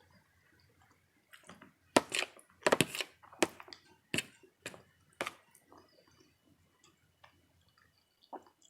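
Crunchy food being chewed: a run of about eight sharp crunches over about four seconds, the loudest about two seconds in, then a few faint clicks.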